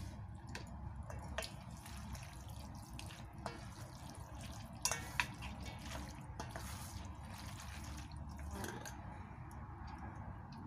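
Wooden spoon and chopsticks tossing dressed noodles, chicken and vegetables in a stainless steel bowl: a soft, irregular mixing noise with scattered light clicks of the utensils against the bowl, a few louder ones about five seconds in.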